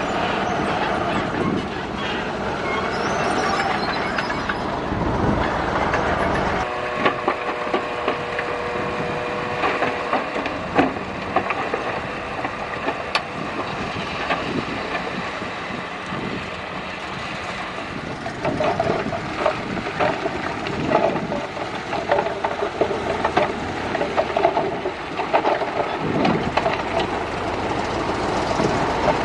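Crawler bulldozer working: its diesel engine runs while the steel tracks clank and squeal in an irregular clatter. The deep engine rumble drops away abruptly about seven seconds in, leaving mostly the track clanking and squeal.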